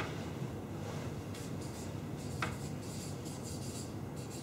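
Marker pen scratching and squeaking on a flip-chart pad in short strokes as words are written. There is one sharper tick about two and a half seconds in.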